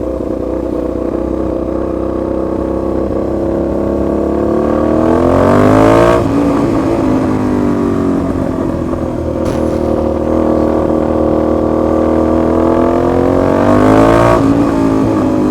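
Aprilia Shiver 750's 90° V-twin engine running very loud, like a bike with the silencer removed. The revs climb and drop sharply twice. The loudness comes from play or a leak at the joint between the silencer and the catalytic converter that retightening the clamp has not cured.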